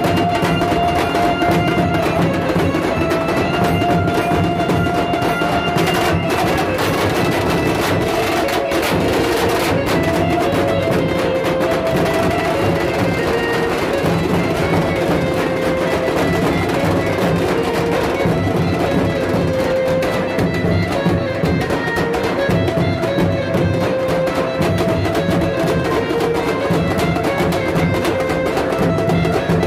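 A Mumbai banjo party street band playing: large double-headed bass drums and snare drums beaten with sticks in a dense, steady rhythm. A lead melody of long held notes sounds over the drums.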